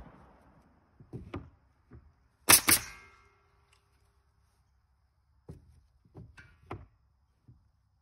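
Pneumatic coil nailer firing two nails into a wooden fence picket in quick succession about two and a half seconds in, each shot a sharp crack with a brief ring. Quieter wooden knocks come before and after as the pickets are handled and set against the rails.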